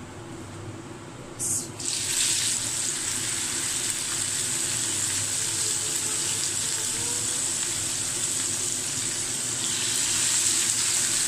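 A raw beef chapli kabab goes into hot oil in a frying pan, and the oil breaks into a loud sizzle about two seconds in, then keeps up a steady bubbling sizzle as the patty shallow-fries.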